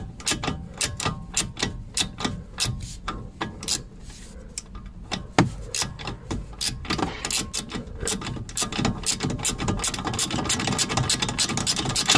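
Ratchet wrench clicking in quick, even strokes as the loosened nut on a front stabilizer link is backed off, with one louder click about five seconds in and the clicks coming faster in the second half.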